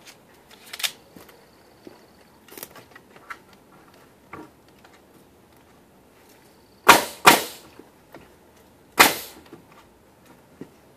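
Ridgid pneumatic pin nailer firing: two sharp shots in quick succession about seven seconds in and a third about two seconds later, with a few lighter clicks and taps before them.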